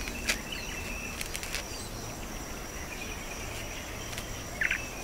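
Outdoor ambience of insects droning steadily on one high note, with scattered short bird chirps and a few sharp clicks.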